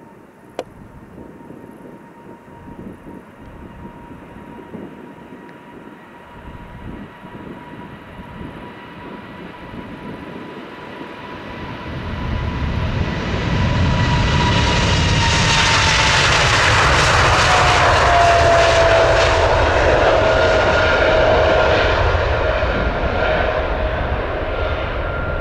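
Boeing 747-8 freighter's four GEnx turbofans at takeoff thrust, building through the takeoff roll and liftoff. It grows much louder about halfway through, and a steady whine drops in pitch as the jet passes.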